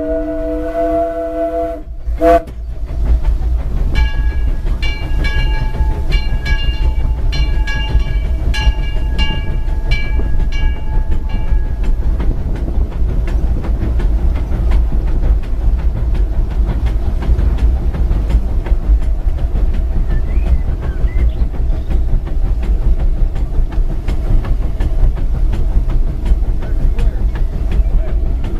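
Steam locomotive Ernest S. Marsh #4 running: its whistle sounds one chord of three notes for about two seconds at the start. A bell then rings steadily for about eight seconds, over the constant low rumble of the engine and wheels on the rails.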